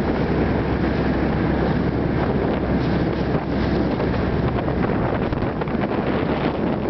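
Wind buffeting the microphone over the steady rush of a fast motorboat under way.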